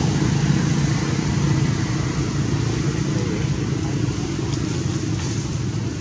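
Steady low rumble of a running engine, like nearby vehicle traffic or an idling motor.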